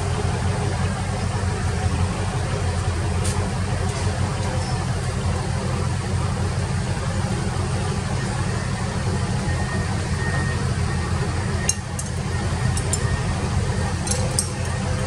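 Excavator engine running steadily with a low, even sound, with a few light clicks near the end.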